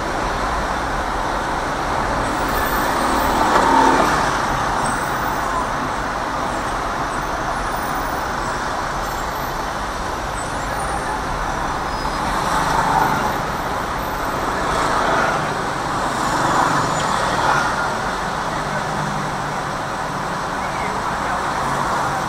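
City traffic heard from inside a car: a steady wash of engine and road noise from surrounding vehicles, swelling a few times as louder vehicles pass close by.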